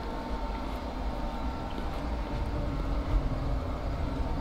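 Steady low outdoor background rumble with a faint steady hum.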